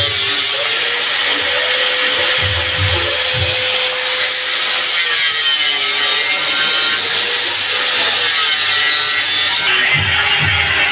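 Electric grinding or polishing tool running against a steel blade: a steady grinding hiss over a high motor whine whose pitch dips and recovers a few times as the tool is pressed into the work.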